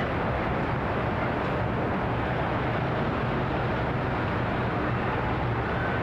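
Residential-neighbourhood ambience: a steady wash of background noise with a low hum of distant traffic and no distinct events.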